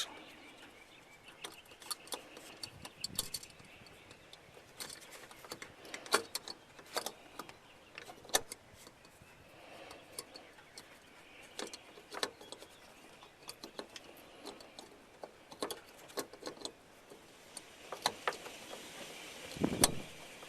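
Irregular light clicks and taps of an H1 headlight bulb and its wire retaining clip knocking against the back of the headlight housing as the bulb is worked into its seat, with a duller knock near the end.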